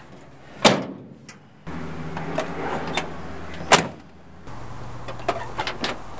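Metal clunks from a 1977 Chevrolet pickup's tailgate and driver's door: a sharp bang under a second in and another about two-thirds through, then light latch clicks as the door is opened.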